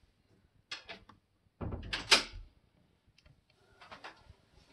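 Small Phillips screwdriver driving a screw into a laptop display panel's corner mount: a few short scraping clicks and knocks of the tool and hand against the lid frame, the loudest about two seconds in.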